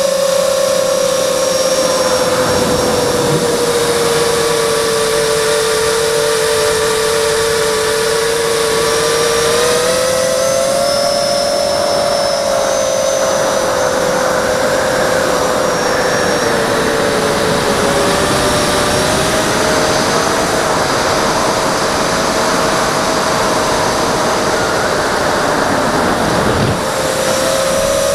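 Six Multistar Elite 2204 brushless motors spinning Gemfan three-blade props on a hexacopter in flight, heard from its onboard camera. A steady whine whose pitch drifts lower and higher as the throttle changes, over a constant rushing noise.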